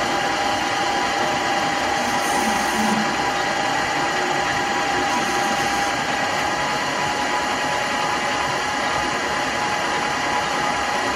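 Colchester Bantam lathe running steadily under power, taking a light 2.5-thou turning cut. Its gear train whines with several steady tones throughout.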